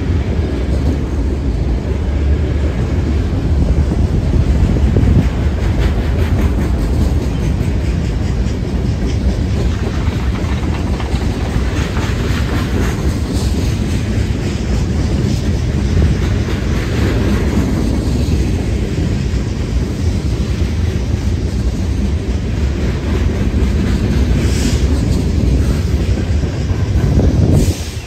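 Freight train rolling past, a steady, loud rumble of wheels on the rails.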